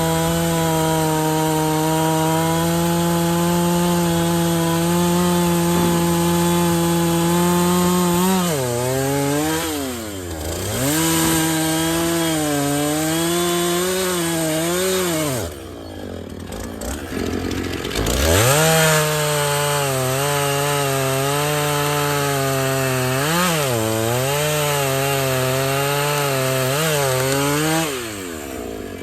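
Chainsaw running at full throttle with a high, steady engine note that sags in pitch several times as the chain bites into the wood. Around the middle it drops to a low idle for about two seconds, then revs back up and cuts again, and it lets off near the end.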